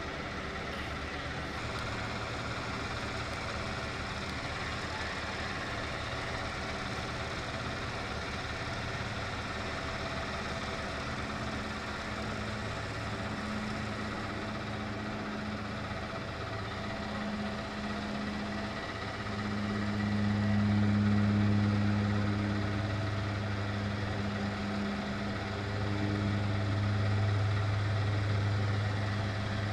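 Engine of a motorised cricket pitch roller idling with a steady low hum. It grows louder about two-thirds of the way through.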